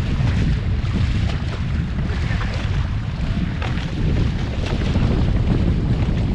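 A waverunner's engine running on the water, with heavy wind buffeting the microphone and water splashing.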